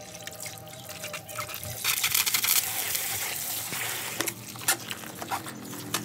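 Water from a garden hose splashing into a glass aquarium tank while a hand scrubs the inside, getting louder about two seconds in, with a few knocks of hand and hose against the glass.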